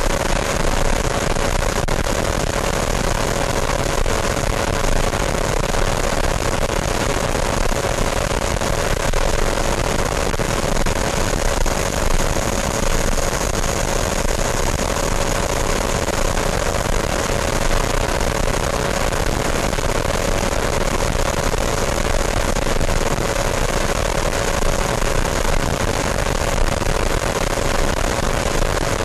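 Steady rushing noise with a constant faint whine, unchanging throughout, picked up on board an electric ducted-fan RC jet in flight: airflow and ducted-fan noise.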